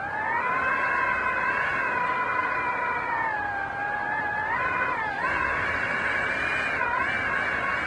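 A sustained, wavering high tone with overtones that slides slowly up and down in pitch, with brief quick dips about five and seven seconds in.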